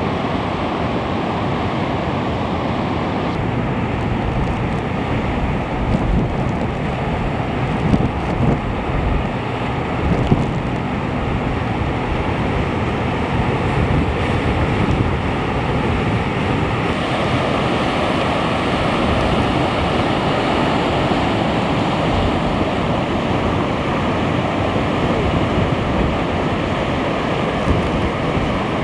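King-tide surf rushing and breaking around the pilings of a building over a river mouth: a steady wash of churning water, with wind buffeting the microphone and a few louder low gusts or crashes about a third of the way through.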